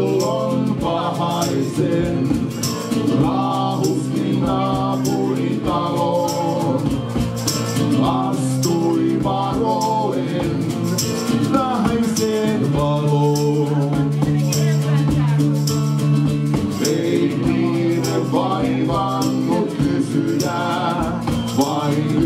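Live acoustic music: acoustic guitar played alongside a hand-shaken shaker and tambourine jingling in a steady beat, with a bending melody line above.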